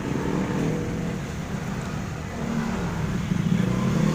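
A motor vehicle engine running steadily, growing louder from about three seconds in.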